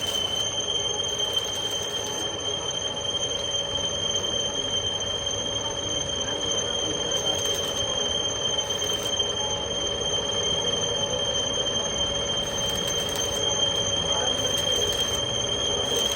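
Heavy boring machine cutting a steel pipe, the tool giving a steady high-pitched squeal over the running machine.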